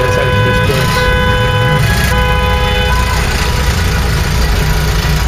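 Vehicle engine running with a steady low rumble, under a pitched, horn-like tone that sounds in three stretches of about a second each and stops about three seconds in.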